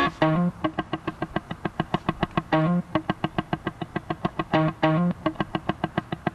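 Background music: a guitar playing a quick, even run of picked notes, with a few heavier low notes among them.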